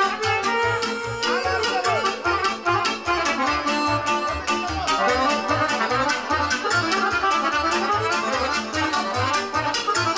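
Lively accordion-led music with a steady beat of bass and drum.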